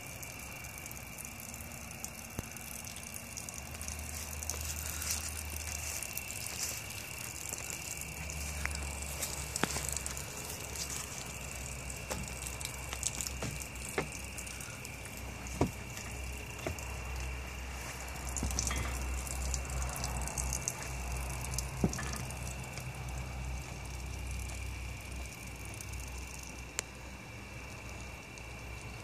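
Faint outdoor background noise with a steady high tone and hiss, a low rumble that comes and goes, and scattered sharp clicks, typical of a handheld phone being moved about; the outboard is not running.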